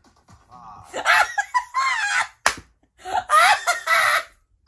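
A man laughing hard in two loud bursts, with one sharp hand clap between them about halfway through.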